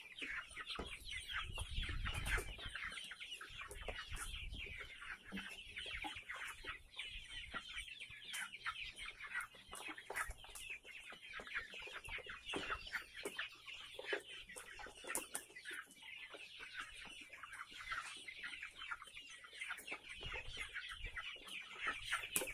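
A large flock of young native chickens clucking and peeping over one another without a break, the clamour of a hungry flock waiting to be fed. There are a few low thuds in the first few seconds.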